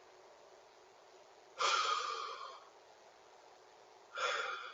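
A person breathing out hard: two long, noisy exhalations about two and a half seconds apart.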